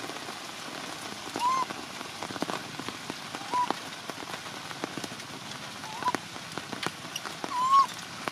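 Heavy rain falling and dripping, with a frightened baby macaque giving four short cries that rise and fall in pitch, the last and loudest near the end.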